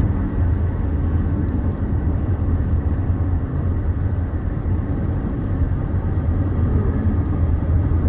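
Steady road and engine noise inside a moving car's cabin, a low drone with a hiss of tyres over it.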